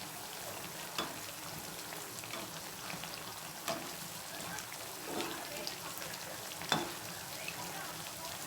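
Batter-coated bread pieces deep-frying in hot oil, sizzling steadily, with a few sharp taps as the pieces are stirred and turned over in the pan.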